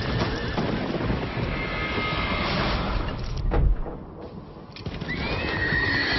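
Horses neighing in a dense film sound mix, with one whinny rising and falling in pitch near the end and a brief lull in loudness partway through.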